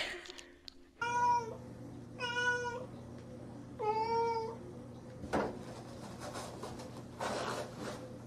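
Domestic cat meowing three times, each meow under a second long and about a second apart. After that comes a single sharp knock and, near the end, a short rustle.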